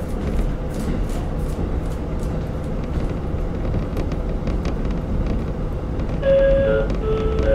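Steady low rumble inside a KiHa 40 diesel railcar under way, from its diesel engine and the wheels on the rails, with faint scattered clicks. Near the end a chime of a few held tones at different pitches starts.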